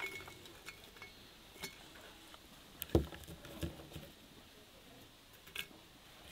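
Light handling sounds of stems and blackberries being picked from a wicker basket and dropped into a glass teapot: scattered soft clicks and taps, a couple of faint glass clinks, and one dull knock about three seconds in.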